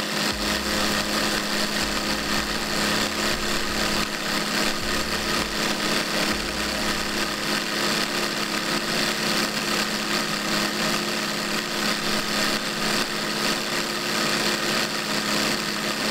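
Homemade magnet model engine running: a 772 DC electric motor spins the crank of a V-twin made of syringe cylinders, and magnets give a rapid, steady rattle over a motor hum, simulating engine compression vibrations. It starts suddenly at full speed.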